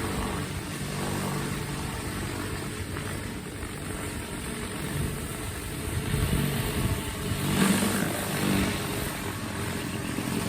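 Gas-engine pressure washer running steadily, with the hiss of the high-pressure spray on top; the spray noise swells briefly about eight seconds in.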